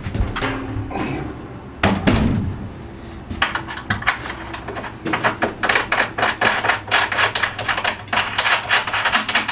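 Removable spare tire holder being fitted back onto its mounting track: a couple of knocks, then a quick run of clicks and taps, several a second, as it is worked into place.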